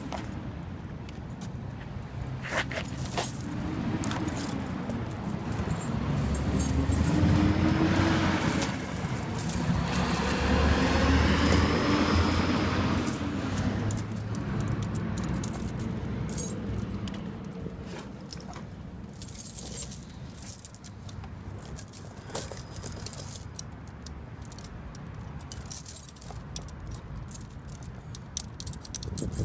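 Steel studded ATV tire chains clinking and jangling in irregular bursts as the links are handled and the hooks are fastened on the tire. A low rumble with a wavering pitch swells and fades through the middle.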